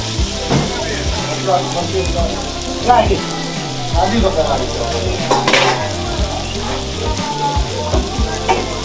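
Food sizzling in a hot frying pan while a metal spatula stirs and scrapes through it, with irregular scrapes over a steady hiss.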